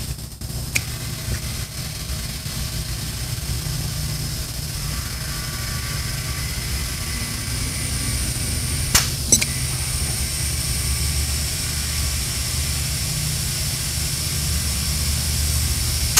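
Compressed air hissing steadily from a handheld tire inflator into an off-road tire, filling it through a freshly fitted Kolbe emergency valve stem. A low steady hum runs underneath, and a couple of sharp clicks come about nine seconds in.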